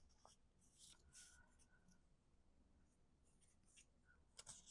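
Faint, scattered rustles and scrapes of paper being handled and folded along its score lines, a few short ones near the start and a couple more near the end.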